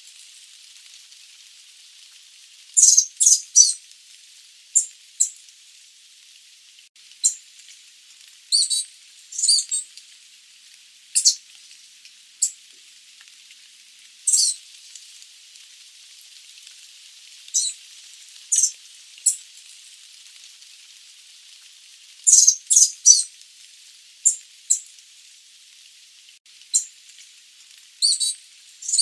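Sooty babblers giving short, high-pitched squeaky calls, singly and in quick clusters of two or three, at irregular intervals over a faint steady hiss.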